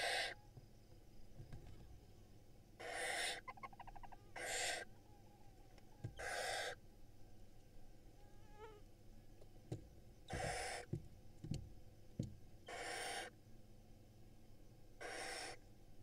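Barn owl nestlings giving their hissing begging calls: about six hisses, each about half a second long and a couple of seconds apart. A few soft knocks from movement in the nest box come near the middle.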